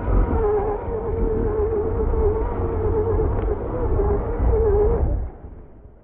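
Electric motor of a Traxxas RC monster truck whining as it spins its wheels in snow: a wavering mid-pitched whine over a low rumble. It stops about five seconds in, with the truck's batteries running flat.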